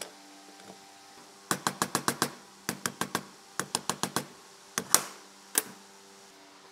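Quick runs of sharp metal taps, five or six at a time and several a second, on the aluminium motor housing of a circular saw as its copper field-coil stator is worked into place. The taps start about a second and a half in and stop about a second before the end.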